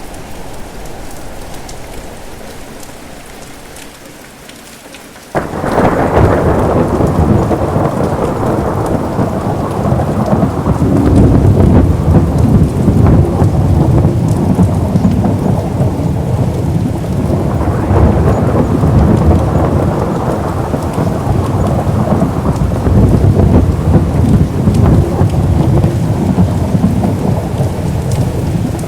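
Steady rain, then about five seconds in a thunderclap breaks in suddenly and rolls on as a long, loud, low rumble over the rain, swelling again a little past the middle.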